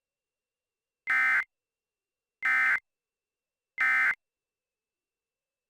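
Emergency Alert System SAME end-of-message data bursts: three short, identical, rasping digital tone bursts about a second apart. They signal that the alert message is over.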